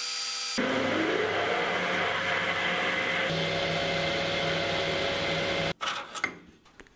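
Metal lathe running while turning and then boring a mild steel part held in a collet: a steady machine hum with the noise of the tool cutting. It stops suddenly about six seconds in, leaving a few faint clicks.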